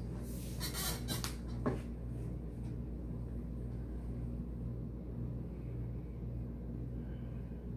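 Steady low electrical hum from a plugged-in electric guitar rig idling, with a few brief handling noises in the first two seconds as the guitar is settled in, before any notes are played.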